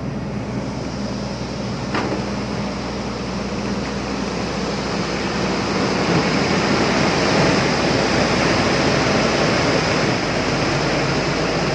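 Komatsu PC210 excavator's diesel engine running steadily, with its cooling fan rushing, heard close to the open engine compartment. It grows louder about six seconds in, and there is a single sharp tick about two seconds in.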